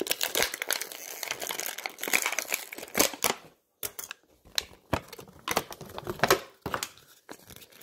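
Plastic packaging crinkling and crackling as it is handled, in irregular bursts with sharp clicks.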